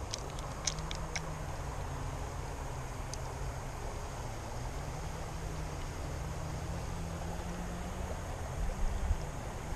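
Steady rush of creek water, with a few faint clicks in the first second and a low hum underneath that wavers slightly in pitch. A couple of low bumps come near the end.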